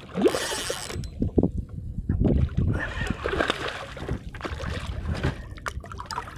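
Water splashing and sloshing in irregular bursts around a canoe while a hooked fish is fought near the surface, with knocks from handling the rod and boat.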